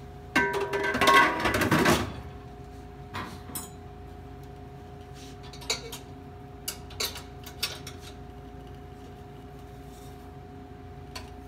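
Metal clattering and scraping as the lid and cooking rack of a stainless-steel pressure smoker are handled, loudest in the first two seconds, then a few light metal clinks as the rack is gripped. A steady hum runs underneath.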